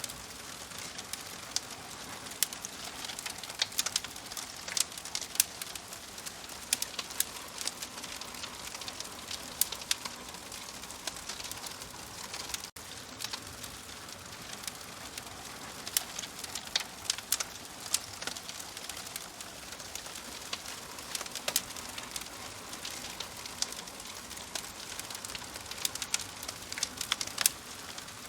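Wood fire burning in a wood-burning stove: a steady hiss dotted with frequent sharp pops and snaps of crackling wood. The sound drops out for an instant a little before halfway.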